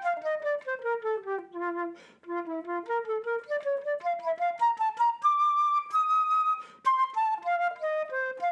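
Solo flute melody: quick separate notes run downward, climb back up to a long held high note, then step down again.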